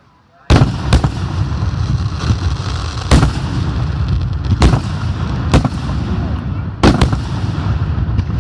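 Fireworks going off. A sudden loud bang comes about half a second in, followed by continuous crackling and rumbling with sharp bangs every second or two.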